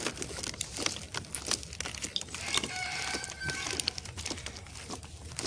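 A rooster crowing once, a drawn-out call that steps down in pitch, about two and a half seconds in, over the crunch of footsteps on a dirt lane.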